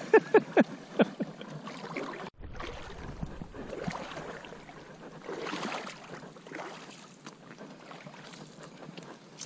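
River water sloshing and splashing around people working in the shallows, with scattered small knocks. The sound drops out briefly about two seconds in.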